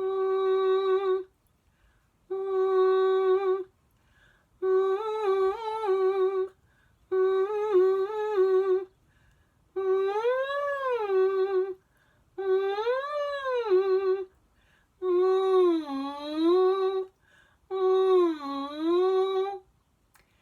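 One voice humming a vocal warm-up in eight short phrases with pauses between. The first phrases are held on one note or step slightly, the middle ones slide up and back down, and the last two dip down and come back up.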